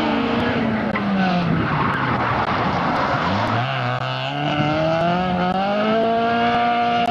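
Rally car engine dropping in pitch as it brakes into a corner, a rush of tyres sliding on loose dirt, then the engine revving up steadily as it accelerates away and holding high revs near the end.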